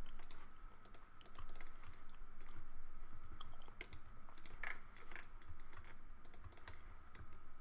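Computer keyboard keys tapped irregularly, a run of separate clicks from Blender shortcut keys being pressed, over a faint steady high-pitched hum.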